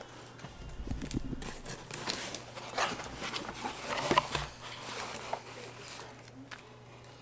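Cardboard box flaps and wrapped gifts being handled and pulled out of a delivery box: intermittent paper and cardboard rustling and crinkling, with a few sharper crinkles near the middle.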